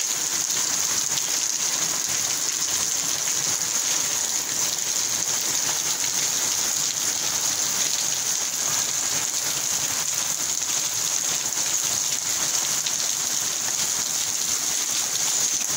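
Heavy rain falling steadily on a wet street, an even hiss with no let-up.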